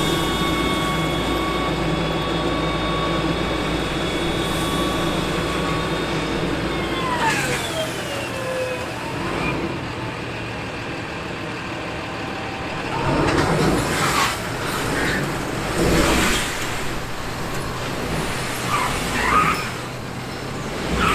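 A dump trailer unloads mulch over a truck engine idling. The trailer's hydraulic lift pump whines steadily, then winds down with a falling whine about seven seconds in. Several loud thumps and rattles follow as the load slides out.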